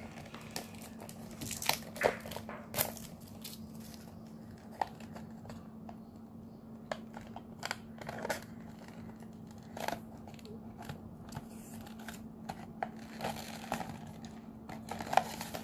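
Hands handling a small cardboard box and loose plastic shrink-wrap: scattered crinkles, light scrapes and taps of card as the box is opened, over a faint steady low hum.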